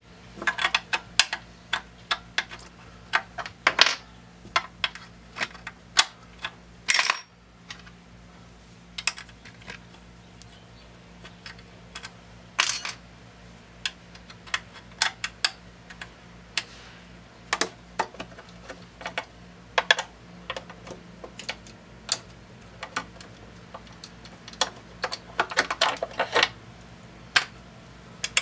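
Scattered small metal clicks and clinks of an Allen wrench and cap screw being turned and handled at a mini lathe's rear cover, with a few louder clinks, over a faint steady low hum.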